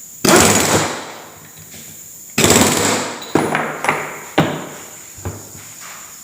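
The left-hand-threaded pulley nut on a Suzuki WagonR integrated starter generator being tightened with a tool. There are two loud bursts about two seconds apart, each fading over most of a second, followed by four short sharp knocks.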